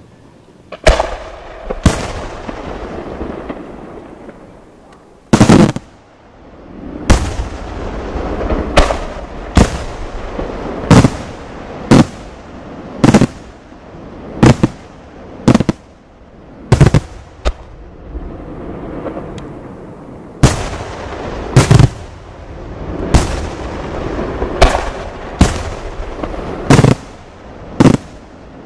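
La Rosa Artist Fireworks aerial shells bursting in a steady string, with a sharp bang about once a second and a short lull a few seconds in. Each bang leaves an echoing rumble and a hiss of burning stars between the reports.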